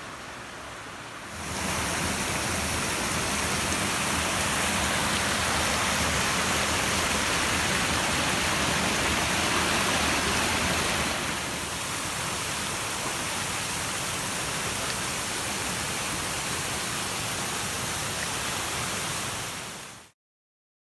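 Steady rushing of water cascading over rocks and logs in a woodland creek below a waterfall. It is quieter for the first second and a half, drops slightly a little past halfway, and cuts off suddenly near the end.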